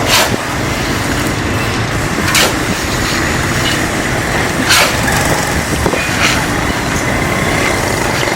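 Loud, steady machinery noise with sharp knocks about every two to two and a half seconds.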